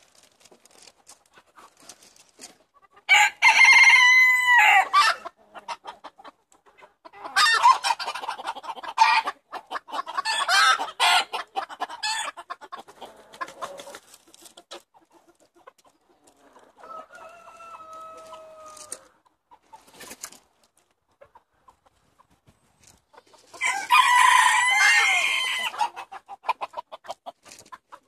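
Roosters crowing: about five long crows spread out, one of them fainter near the middle, with short clucks between.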